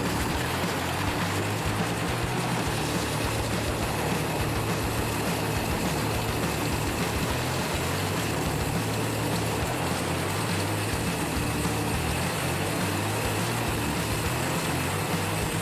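Wood chipper running steadily, an even engine hum with a mechanical hiss over it.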